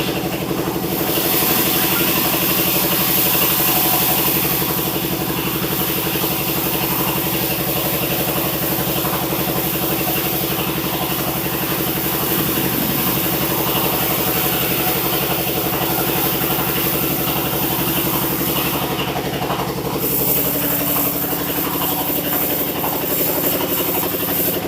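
Sawmill engine running steadily, with a hiss over it; the sound shifts slightly about twenty seconds in.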